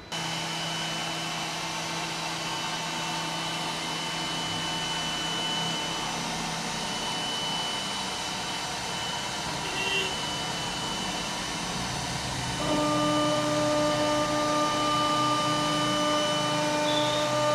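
CNC wood router running: a steady whine from the spindle over a hiss. About two thirds of the way through, the whine changes to a different set of notes and gets louder.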